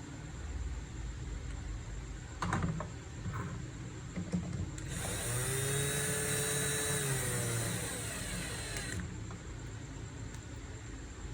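A small electric motor, such as a hand power tool, whirs for about four seconds in the middle, its pitch rising and then falling, after a couple of short knocks.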